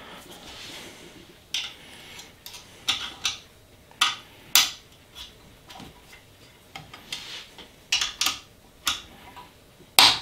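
A hex key clicking and clinking against the screws and aluminium frame of an Ender 3 Pro as the Y-axis belt tensioner screws are loosened: a string of sharp, irregularly spaced metallic clicks.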